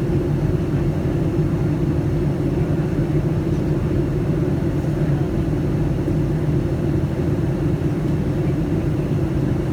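Steady low rumble and hum of a Boeing 757-200 heard from inside the passenger cabin, the engines and airflow running evenly with no change in level.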